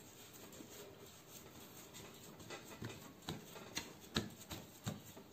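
Hands pressing and patting a round of soft bread dough into a metal baking tray dusted with bran: faint soft handling, with about five light taps in the second half.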